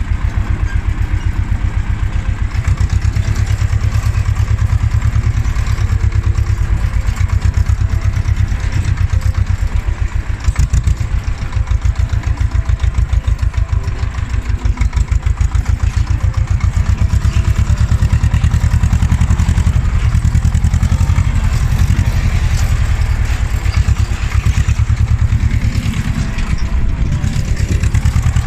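Ursus C-330M tractor's two-cylinder diesel engine running steadily while driving, its even, loud low firing pulses heard from the driver's seat.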